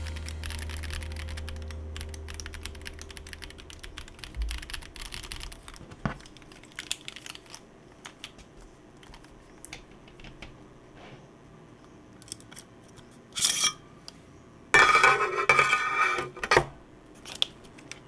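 Typing on an Akko ACR Pro Alice Plus mechanical keyboard: a fast run of key clacks for the first several seconds. Then scattered knocks and clicks as the disassembled keyboard case is handled, and a loud rattling clatter lasting about two seconds near the end.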